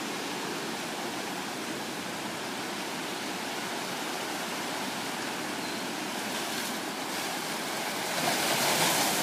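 Ocean surf washing over shoreline rocks, a steady rush of water that swells louder about eight seconds in as a wave breaks.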